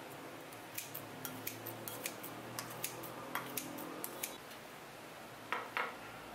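Kitchen scissors snipping kimchi in a ceramic bowl: about fifteen quick, sharp snips and clicks over three and a half seconds. Near the end come a couple of louder knocks as a wooden cutting board is set down on the counter.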